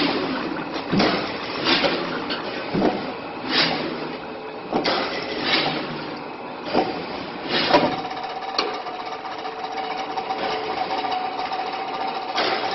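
Box-making machine in a carton factory running, with sharp knocks about once a second. Partway through, a steady hum joins and runs on under the knocks.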